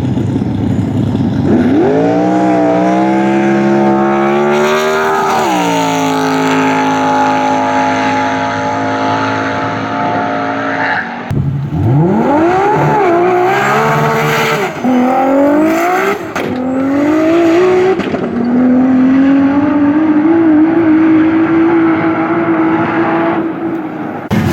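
Drag-racing car's engine revving hard: the pitch climbs about two seconds in and holds high, breaks off sharply around the middle, then rises in several short runs before settling on a steady high note near the end.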